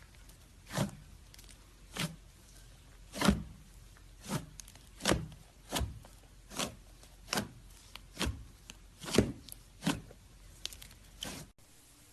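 Slime being pressed and poked by hand, giving short sudden pops about once a second. The sound cuts off abruptly near the end.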